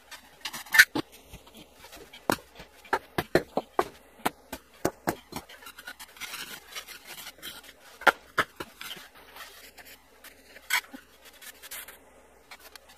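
Wet concrete mix being scraped and tamped down into a floor hole with a paving stone: irregular sharp knocks and gritty scrapes of stone on concrete.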